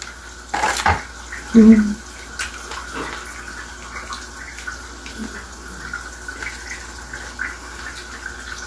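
Kitchen tap running steadily into a sink. A knock comes just under a second in, and a short hum of a voice follows soon after.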